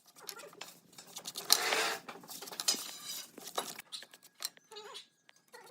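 Scattered small clicks and knocks of objects being handled, with a brief louder scraping hiss about one and a half seconds in.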